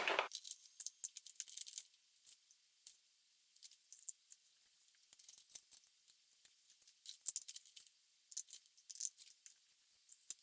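Faint, scattered light clicks and scrapes of a refillable coffee-capsule kit being handled as pods are filled with ground coffee, tamped and lidded, with small clusters of ticks in the second half.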